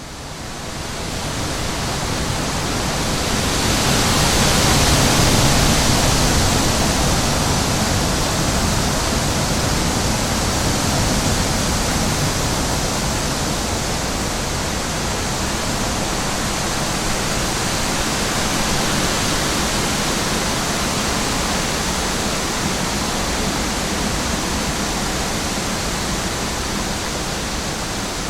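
Wind blowing, a steady rushing hiss that fades in, swells to a strong gust a few seconds in, then settles into a steady blow.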